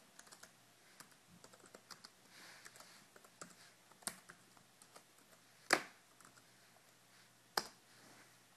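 Typing on a MacBook keyboard: irregular light key clicks, with three sharper, louder key strokes in the second half.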